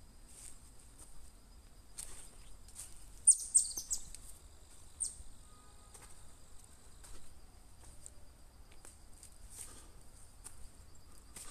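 Insects chirring in woodland as a steady high buzz, with a short burst of bird chirps about three seconds in and another brief chirp a couple of seconds later. Scattered soft clicks sound throughout.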